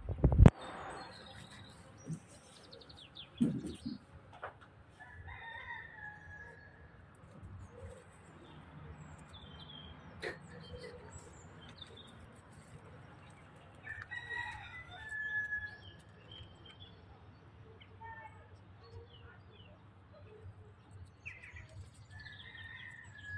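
Birds calling in short, scattered chirps and whistles, in clusters a few times. There are loud bumps from the phone being handled near the start and again a few seconds later.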